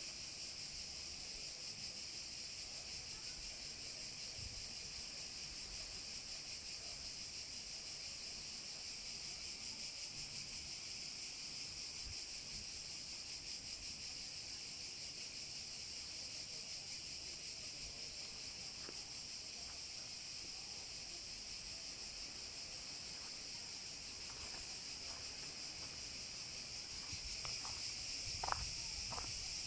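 Cicadas buzzing in a steady, dense summer chorus, a continuous high-pitched hiss. A few sharp clicks come near the end.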